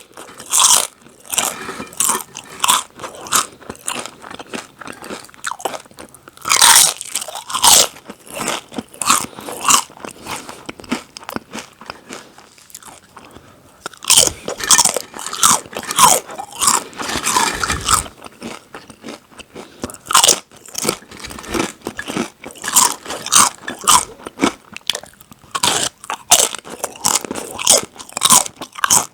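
Close-miked biting and chewing of crunchy snack chips. Loud crunches come in clusters with quieter chewing between them, and there is a short lull about twelve seconds in.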